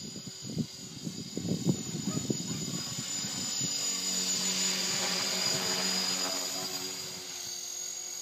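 HK450 PRO electric RC helicopter with an Align 430L motor, running at 72% throttle, flying overhead: a steady high whine with the rotor's whir beneath it. It grows louder about four seconds in as the helicopter comes close, then eases off near the end. Irregular low bumps on the microphone come in the first few seconds.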